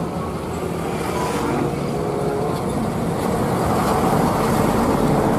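Hino Ranger box truck's diesel engine running as it drives by, with road noise, growing gradually louder as the truck comes close.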